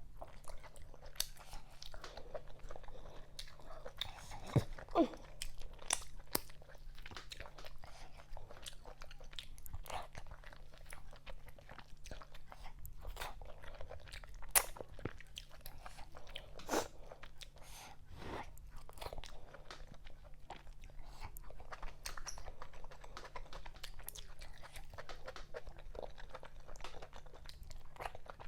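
Close-miked chewing and wet mouth sounds of a person eating fufu with okra vegetable soup: irregular smacks, clicks and crunches over a faint steady low hum.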